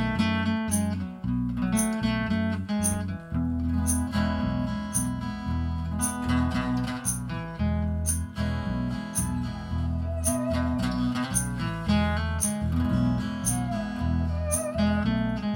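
Live band playing an instrumental introduction led by guitar, over a stepping bass line and a regular high tick keeping the beat.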